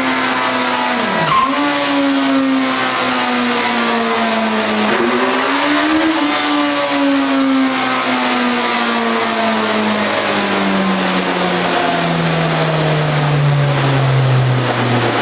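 Motorcycle engine running at high revs, its pitch dipping briefly about a second in, climbing again around six seconds, then falling steadily as the engine slows.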